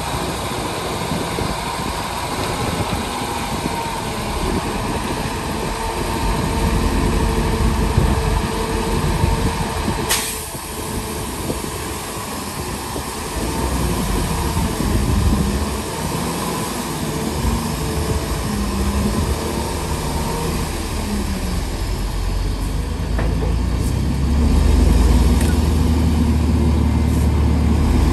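Diesel engines of heavy dump trucks running as the beds tip up to unload soil. The sound changes suddenly about a third of the way through, and a deeper, louder engine rumble sets in for the last few seconds.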